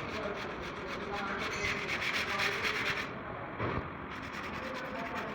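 Steady rubbing, scraping noise, with the hiss briefly thinning about three seconds in.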